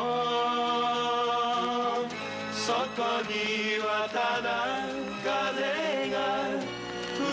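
A Japanese song on the soundtrack, its slow melody moving in long held notes.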